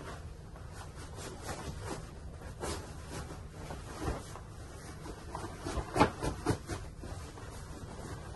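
Bed linen rustling and pillows being handled and shaken, with scattered soft thumps; the loudest thumps come in a quick cluster about six seconds in.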